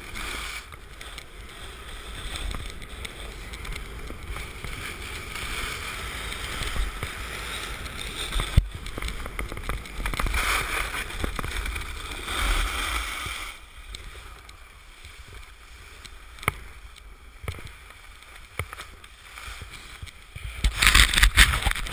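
Hiss and scrape of skis or a snowboard sliding over packed, tracked piste snow, with wind rumbling on the camera's microphone. The sliding noise eases for a stretch past the middle, then turns loud and choppy near the end.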